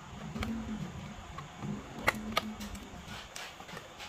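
Handling noise from a hand gripping and turning a Pokémon card tin: a few light, sharp clicks and taps spread across the few seconds.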